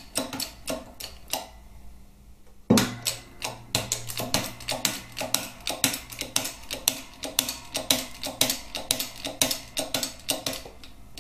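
Shop press pushing the pinion bush out of a Harley-Davidson Twin Cam cam plate with a steel press bar. A steady run of sharp metallic clicks comes about four a second, and a sudden loud knock about three seconds in starts a low hum.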